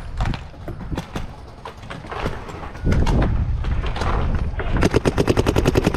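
Paintball marker firing a fast string of shots, about ten a second, starting near the end, with a few scattered shots before it. Wind buffets the microphone with a low rumble through the second half.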